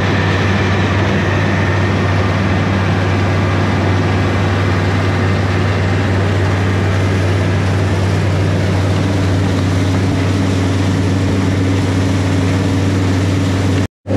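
John Deere 5325 tractor's diesel engine running steadily at about half throttle under a light pulling load, heard from the open operator's seat.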